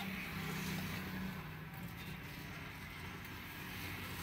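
A motor vehicle engine running close by over street noise, its low hum dropping a little in pitch about a second in.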